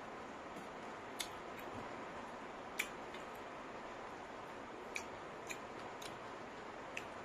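Close-up eating sounds: about six sharp, separate mouth clicks and smacks at uneven intervals while chewing, over a steady faint hiss.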